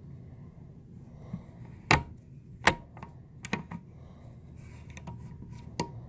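The bolt of a custom bolt-action hunting rifle being worked in its steel receiver, making sharp metallic clicks and clacks. Two loud clicks come about two seconds in and under a second apart, then a quick cluster of three, and a last click near the end.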